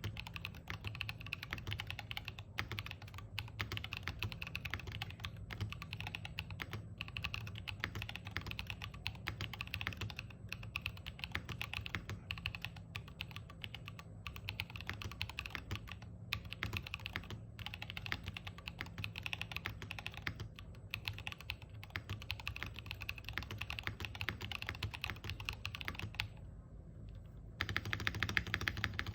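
Continuous typing on a mechanical keyboard fitted with Everglide Dark Jade tactile switches on a polypropylene (PP) plate, a dense patter of key presses. It pauses briefly about 26 seconds in, then resumes louder near the end.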